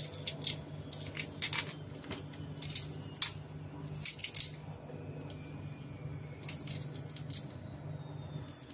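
Raw shrimp being peeled by hand: shells and heads cracking and squelching in irregular small clicks, over a low steady hum.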